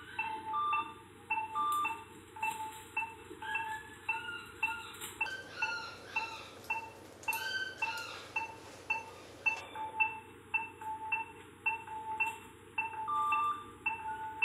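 Background music of light marimba-like mallet tones, short notes at several pitches about twice a second.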